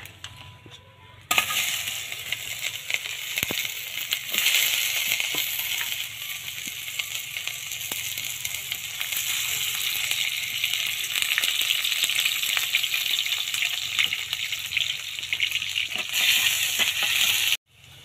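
Chopped onions and garlic sizzling in hot oil in a wok, with crackling. It starts suddenly about a second in, when they go into the oil, and cuts off abruptly just before the end.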